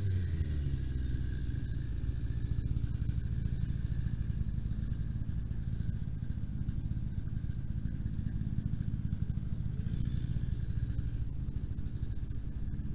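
Engine idling steadily with a low, even pulse.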